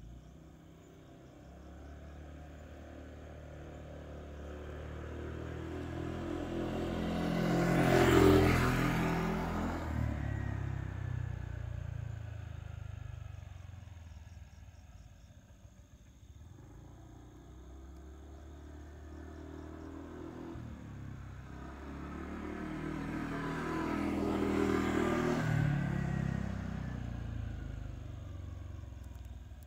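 Two motor vehicles pass by one after the other, each engine sound slowly growing to a peak and fading away, the first about eight seconds in and the second near twenty-five seconds. A steady high insect trill runs behind them.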